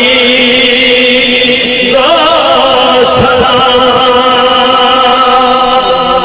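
Men's voices chanting a devotional Urdu salam, drawn out into long held notes that waver in pitch; a new phrase begins about two seconds in.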